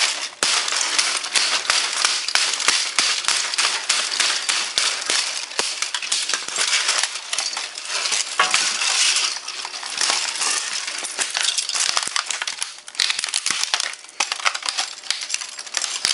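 Compaq Presario F500 laptop being hammered and broken apart by hand: plastic casing cracking and crunching in a dense run of snaps, with loose fragments and shards clinking.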